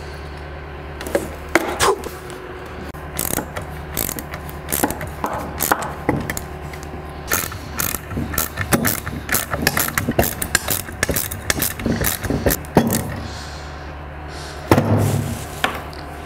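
Metal mounting hardware clicking and rattling in quick irregular runs as an LED light bar is fastened onto a magnetic mount bracket by hand, with a louder thump near the end. A steady low hum runs underneath.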